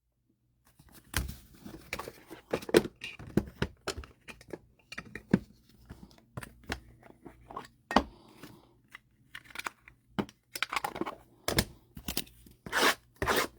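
Trading cards and their plastic wrappers, sleeves and top loaders being handled: irregular small clicks, crinkles and rustles.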